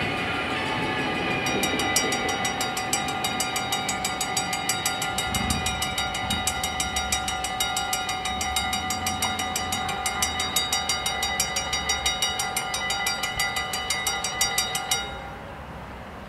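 Mechanical bells of a Dutch level crossing ringing in rapid, evenly repeated strokes, over the fading sound of a departing VIRM double-deck train at the start. The bells cut off abruptly about fifteen seconds in, once the barriers are fully up and the crossing is clear.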